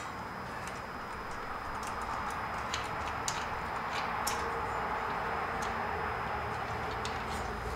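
A few scattered light metal clicks and ticks as a folding steel tire step is handled and its adjusters are worked, over a steady low background noise.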